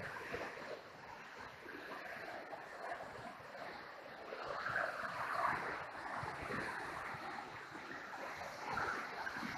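Niagara River gorge rapids rushing: a steady wash of white water that swells a little about halfway through and again near the end.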